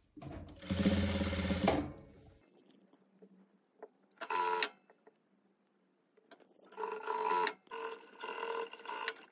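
JACK industrial single-needle sewing machine stitching a folded hem through thick plush fleece, run in stop-and-go bursts. A loud run of about two seconds comes near the start, a short one about halfway, and a longer run that pauses once comes near the end.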